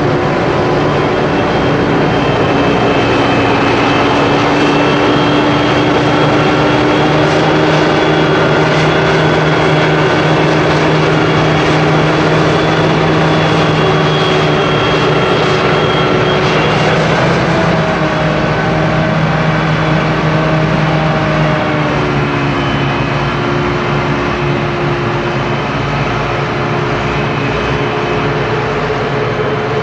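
Heavy farm machinery at work in a maize harvest: a forage harvester and tractors running steadily, several engine and machine tones over a constant noisy drone, with the pitch of some tones shifting about two-thirds of the way through.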